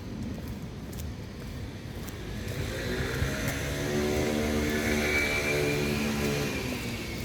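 An engine passing by: its low, evenly pitched hum builds from about a third of the way in, is loudest past the middle, then fades away.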